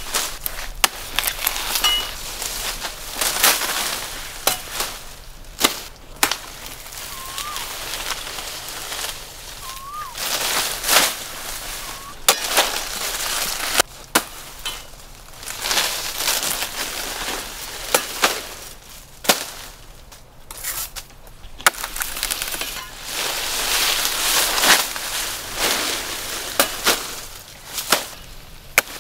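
Blade chopping into a dwarf coconut palm: sharp, irregularly spaced chops with dry crackling between them.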